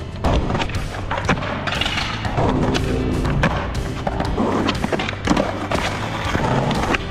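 Music with skateboarding sounds over it: the thuds of a skater and his board hitting concrete in falls, several sharp knocks scattered through.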